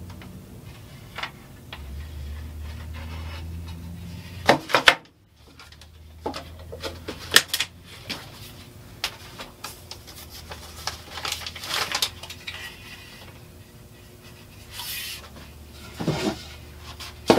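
Scattered clicks and knocks of a plastic emulsion tub and an aluminium scoop coater being handled, set down and picked up, with two louder knocks about five seconds in, over a low steady hum.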